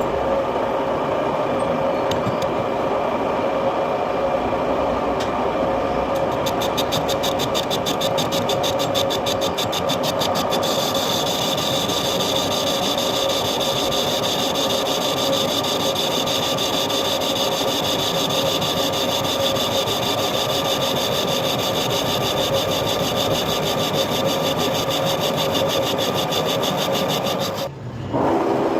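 Metal lathe running steadily while machining a cast iron part, a hum with a steady whine. About ten seconds in, a higher whine joins, and the sound dips briefly near the end.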